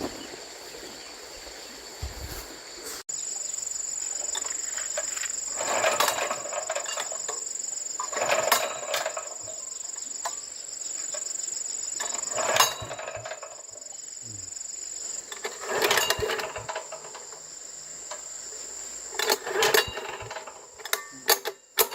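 Steady, high-pitched insect chirring, with several louder noisy stretches of about a second each, at around six, eight and a half, twelve and a half, sixteen and twenty seconds.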